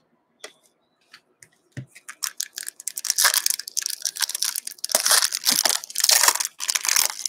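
A few light clicks of cards being handled, then, from about two and a half seconds in, a trading-card pack wrapper torn open and crinkled in rapid, dense crackles.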